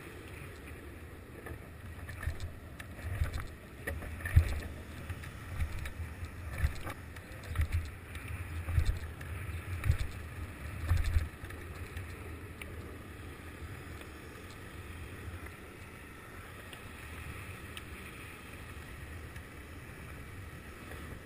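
Wind buffeting a GoPro Hero 2's microphone as it moves fast down a street, in irregular low gusts through the first half, then easing to a steadier rolling rumble over asphalt.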